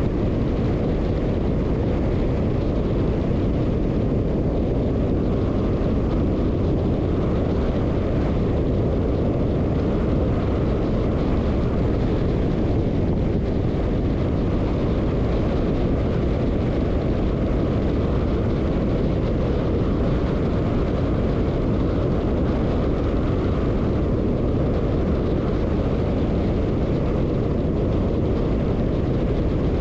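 Steady road noise of a car driving: a constant low rumble of tyres and wind that does not change.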